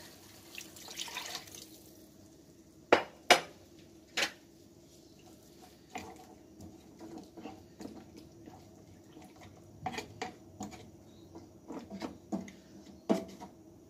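Wooden spatula knocking and scraping against a non-stick frying pan as pork chops are moved about in their braising liquid. A few sharp knocks come about three and four seconds in, followed by lighter taps and scrapes.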